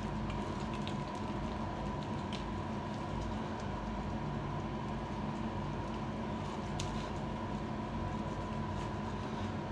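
Hands rubbing foaming facial cleanser over a wet face, a soft faint squishing with a few small wet ticks, over a steady electrical hum.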